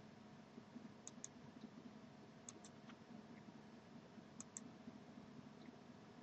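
Faint computer mouse clicks: three times, each a quick pair of clicks, over a low steady hum.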